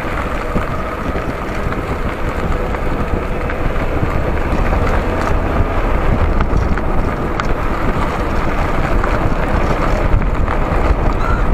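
Wind rushing over the microphone with the steady low rumble of a Maruti Suzuki Zen car driving along the road, slowly getting a little louder.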